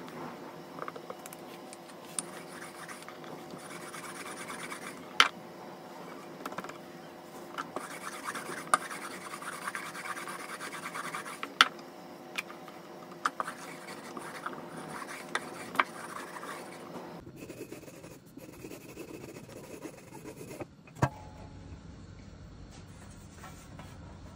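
Hands rubbing, stretching and sliding starch-dusted rolled-out dough sheets over a wooden board: a continuous scratchy rustle with scattered sharp taps and clicks. A louder knock comes a few seconds before the end.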